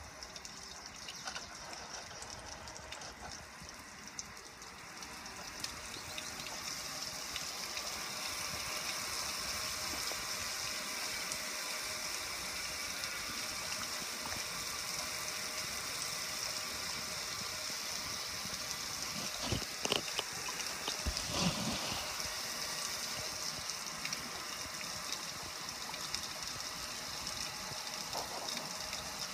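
Water spraying down onto a gas grill, splashing and running off its lid and control panel: a steady hiss that grows louder a few seconds in. Two brief knocks stand out about two-thirds of the way through.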